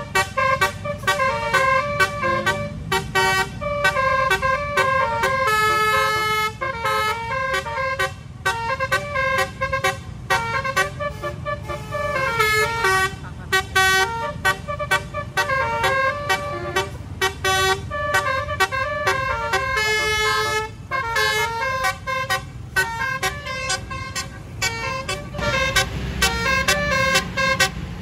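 Bus basuri (telolet) musical horn playing a quick melody of short notes, repeating the tune over and over, over steady road and engine rumble.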